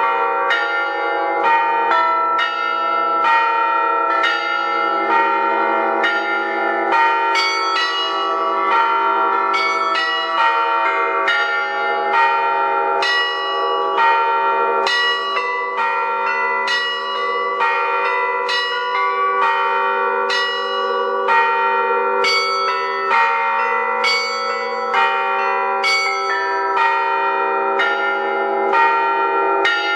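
Russian church bell ringing played on thin-walled bells together with thick bila: a continuous, rapid peal of strikes, a few each second, over a steady bed of ringing tones.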